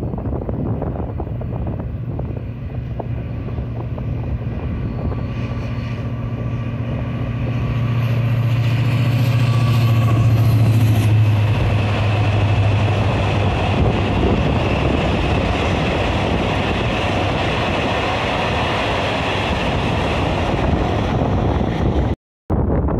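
Renfe class 333 diesel-electric locomotive passing, its engine drone swelling to loudest about halfway through and then fading. It is followed by the steady rumble and high-pitched running noise of loaded flat wagons rolling along the track. The sound cuts out briefly near the end.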